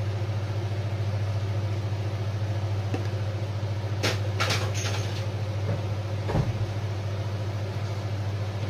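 Steady low hum, with a skillet of potatoes and tomato simmering underneath. A few short knocks and scrapes come about four seconds in and again a couple of seconds later.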